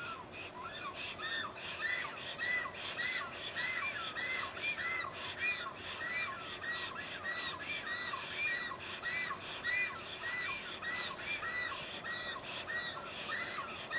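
Black storks giving their greeting calls at the nest: a long, unbroken run of repeated arching notes, about three a second.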